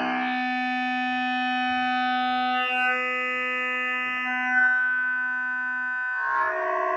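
Buchla 200 modular synthesizer sounding one steady held tone, its pitch unchanging while its upper harmonics fade and then brighten again, changing its timbre. About six seconds in it changes to a different, denser tone.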